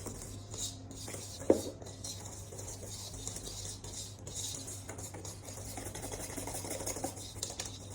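Thick cake batter being stirred by hand in a mixing bowl, the utensil scraping and slapping through it, with one sharp knock of the utensil against the bowl about a second and a half in.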